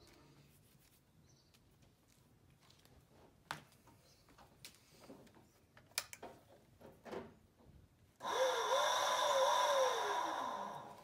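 Razor E200 electric scooter's chain-drive motor starting suddenly at full power when the two-wire switch-type throttle is pressed, whirring for about two and a half seconds, then winding down with a falling pitch once released. Before it, a few light clicks and knocks of handling.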